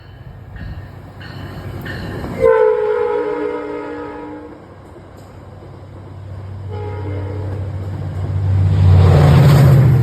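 A passenger train's locomotive horn sounds a long chord about two and a half seconds in, and again from about seven seconds. Between the horn blasts, the locomotive's rumble and the wheel noise grow louder as the train approaches, and are loudest near the end as it passes.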